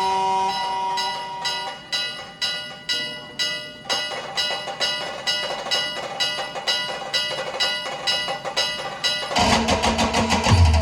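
Brass band music. A held chord dies away, then short repeated pitched notes follow at about two to three a second, and drums with heavy bass come in loudly near the end.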